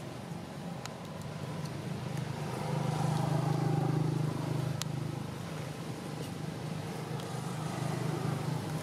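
A motor vehicle's engine hums, growing louder about three seconds in and then fading away, with a few faint clicks over it.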